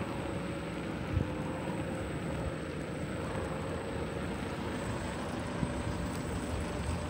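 Steady running noise of a moving vehicle: a low rumble and hiss, with a faint whine that slowly rises in pitch.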